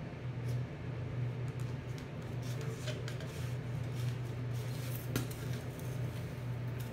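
Wrapping paper and a styrofoam letter being handled, with light rustles and a few soft clicks over a steady low hum.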